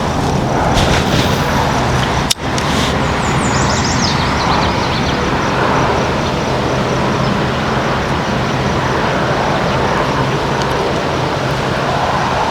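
Steady, loud rushing noise over a low hum, like a boat motor running underway, with one brief dropout about two seconds in.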